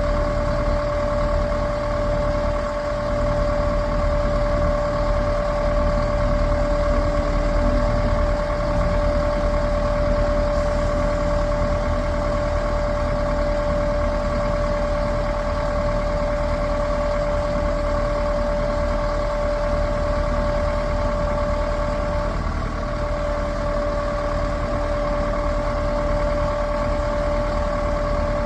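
Heavy diesel engine of the recovery machinery running steadily, with a constant high-pitched whine over the engine hum.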